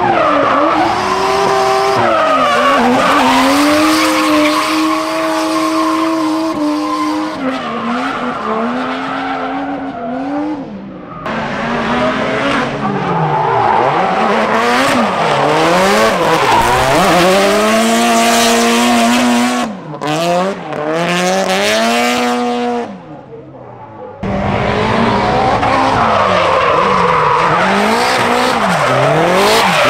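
Drift cars sliding at speed, their engines revving hard and dropping away with quick throttle changes over squealing tires. The sound changes abruptly twice, about 11 and 24 seconds in, as it jumps to another car.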